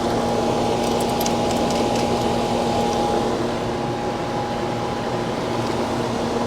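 Steady hum and fan noise of a running central air conditioning condensing unit, with a steady tone that drops out about five seconds in and a few faint light clicks.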